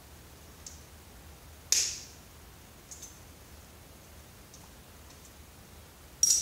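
Sharp clicks and light ticks of hand tools and metal parts while a CRT computer monitor is being taken apart: two loud snaps, the second near the end with a brief metallic ring, and a few faint ticks between.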